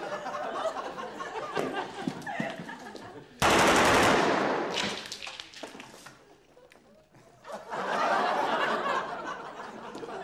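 A burst of automatic rifle fire about a second long, about three and a half seconds in. Studio audience laughter comes before it and swells again near the end.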